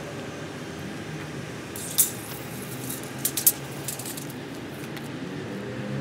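Forklift engine idling steadily, with a sharp click about two seconds in and a quick cluster of light clicks a little later.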